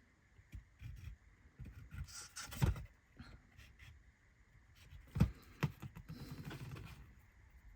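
Small laser-cut wooden kit parts being handled and set down on a workbench: light clicks, taps and scrapes, with two sharper knocks, one about two and a half seconds in and one about five seconds in.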